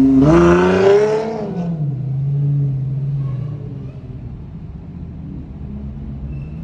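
Car engine revving: its note climbs for about a second, drops back to a steadier lower drone, then fades away after about four seconds.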